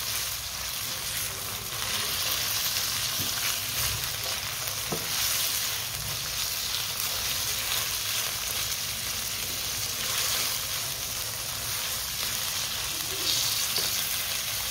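Raw boneless chicken pieces sizzling in ghee in a nonstick wok, a steady frying hiss, while a silicone spatula stirs and turns them with light scrapes. The chicken is being seared until it changes from pink to white.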